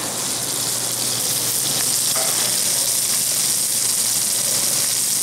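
Mirin-glazed king salmon fillets sizzling skin side down in hot oil in a frying pan, a steady hiss that grows a little louder about a second in.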